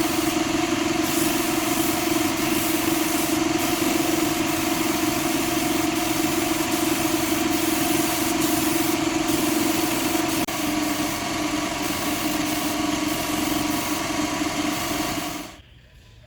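A workshop machine's motor running steadily with a strong hum and a broad rushing noise, then switching off abruptly near the end.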